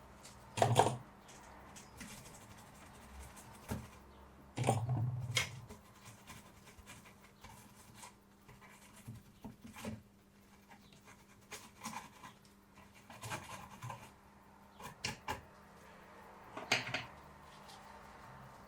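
Paper towel rubbing and scratching across a freshly soldered circuit board as the flux residue is wiped off, in quiet scattered strokes over a steady low hum. Three louder short sounds stand out: about a second in, around five seconds in, and near the end.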